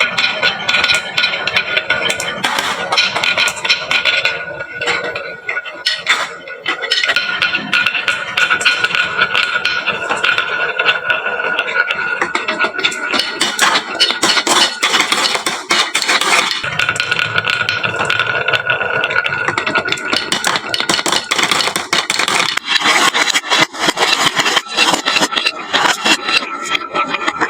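Marbles rolling and clattering down a wooden HABA slope marble run and dropping into toy trucks: a dense, continuous stream of clicks and rattles.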